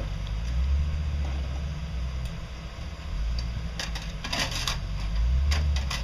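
A low steady rumble with a cluster of metallic clinking and rattling about four seconds in and again near the end: a dangling vehicle license plate being worked loose and pulled off.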